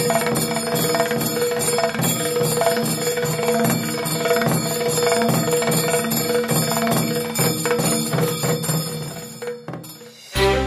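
Background music: steady held tones with a quick, regular ringing beat. It drops away shortly before the end, and a new piece begins.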